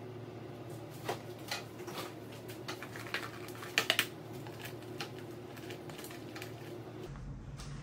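Light taps and clicks of macarons and cardboard gift boxes handled by gloved hands, with a quick cluster of three sharp clicks about four seconds in, over a steady low hum.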